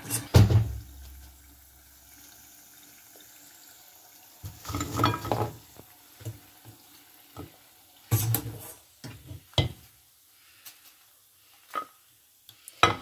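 A wire spider skimmer lifts popcorn chicken out of hot frying oil in a stainless steel saucepan: a loud clank at the start, a faint sizzle, then several short bursts of scraping and clatter as the pieces are tipped onto a plate.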